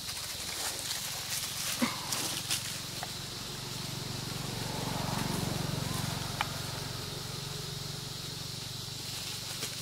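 Outdoor ambience with a steady high hiss, dry leaf litter crackling a few times as monkeys shift, and a low hum that swells and fades in the middle; one short squeak about two-thirds of the way through.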